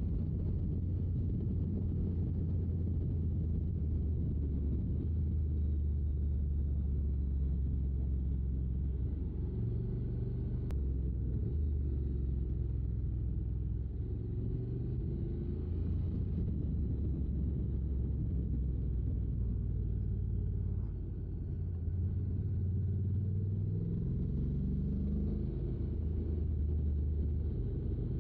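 Honda NC750X's parallel-twin engine running steadily at road speed, with wind and road noise over it. The engine note dips briefly about three-quarters of the way through, then climbs as the bike accelerates again.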